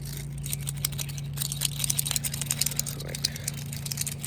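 Fast, irregular plastic clicking and rattling from a fidget toy being worked in the hands, over a steady low hum.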